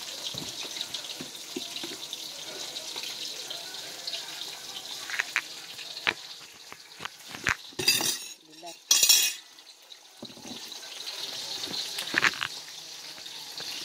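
Kitchen handling sounds over a steady high hiss: scattered clicks and knocks of utensils and dishes, with two short loud rushing bursts about 8 and 9 seconds in.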